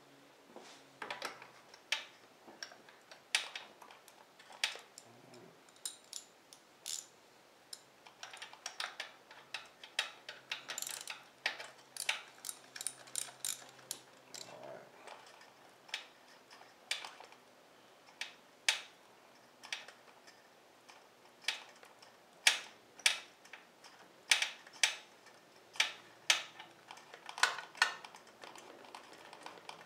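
Ratchet wrench clicking in short, irregular runs of quick clicks as a spark plug is unscrewed.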